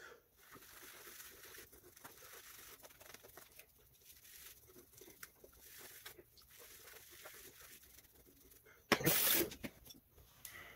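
Boar-bristle shaving brush working lather onto a stubbled face: a faint, scratchy swishing full of tiny crackles. About nine seconds in comes a much louder, brief noisy rustle.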